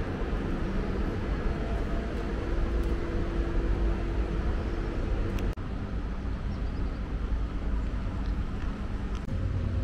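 Steady low rumble of the AmaMagna river cruise ship's engines as it moves slowly into a lock, with a faint steady hum over it. The sound breaks off for an instant about halfway through.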